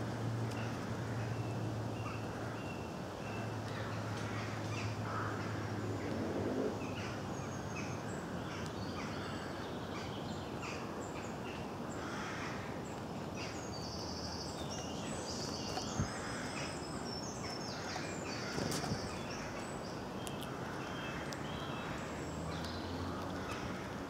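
Woodland birdsong: many small birds chirping and singing in short high phrases, over a low steady hum that fades after the first few seconds. A single sharp click sounds about two-thirds of the way through.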